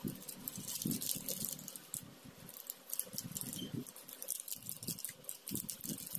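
Plastic wrapping crinkling and rustling as a shrink-wrapped pack of small paint bottles and a plastic packet of dotting tools are handled, with irregular light clicks and soft knocks.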